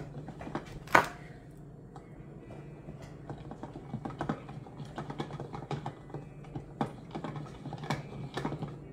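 Hand-cranked rotary drum cheese grater being turned, its crank and drum giving a fast run of small clicks and rattles as a block of cheese is shredded, with one louder knock about a second in. A faint steady hum runs underneath.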